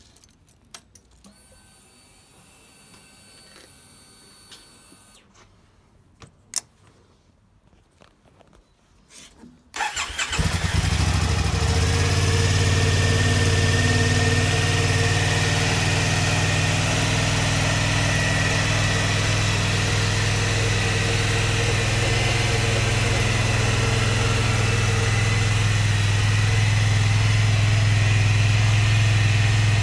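A few small clicks at the ignition. Then, about ten seconds in, the Triumph Bonneville America LT's 865cc parallel-twin engine starts and settles into a steady idle.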